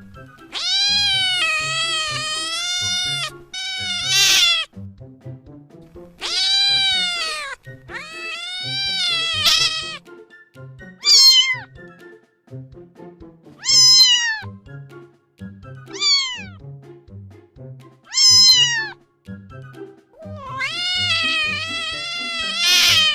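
A domestic cat meowing again and again: several long, drawn-out meows, then four short meows that fall in pitch, then another long meow near the end. Soft background music plays underneath.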